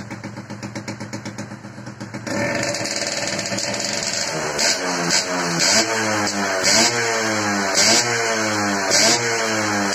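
Suzuki Tornado 110's single-cylinder two-stroke engine idling, then picking up about two seconds in; from about four seconds the throttle is blipped roughly once a second, each rev rising and dropping back. The owner says the engine still sounds good.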